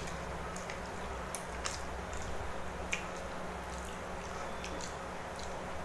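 Eating sounds: chewing mouthfuls of Maggi noodles, with a few faint clicks of cutlery, over the steady hum of a room air cooler.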